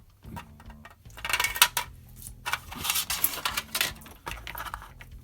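A metal gun barrel clicking, scraping and clinking as it is worked into the drilled mantlet of a plastic tank model. There are two longer spells of scratchy rattling, about a second in and again about three seconds in.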